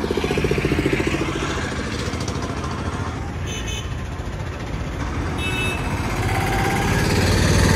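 Road traffic passing, with the small engines of auto-rickshaws and other vehicles running steadily. It grows louder toward the end as one comes close.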